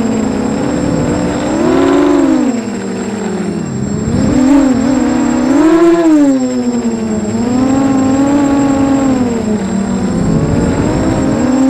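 Small FPV racing quadcopter's electric motors and propellers buzzing in a steady whine that rises and falls in pitch as the throttle is worked, swelling several times.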